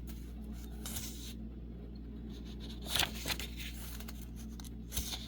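Paper rustling as the pages of a guidebook are turned: three brief rustles, about a second, three seconds and five seconds in, the middle one the loudest, over a steady low hum.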